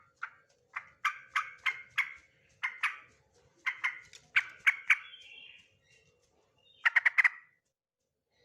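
Male yellow-vented bulbul singing: a string of short, loud, bubbly notes a few tenths of a second apart, a pause, then a quick run of notes about seven seconds in.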